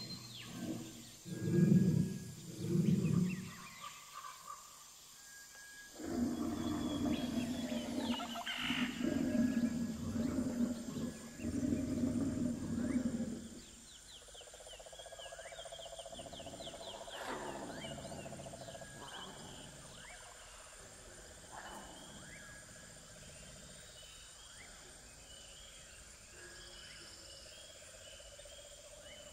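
Animal sounds outdoors: three short low calls at the start, then a longer, louder sustained call from about 6 to 13 seconds, followed by softer chirping and high repeated notes for the rest.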